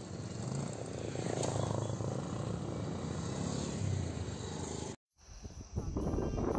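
Motorcycles riding past close by one after another, engines running. About five seconds in, the sound cuts off suddenly, and background music follows.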